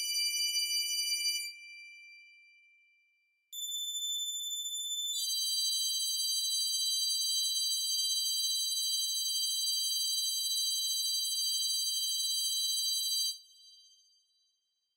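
High, bell-like ringing tones. One held note drops away and fades out about two seconds in; after a short gap a new ringing tone starts, turns into a fuller chord about a second and a half later, holds steady for about eight seconds, then drops and fades out near the end.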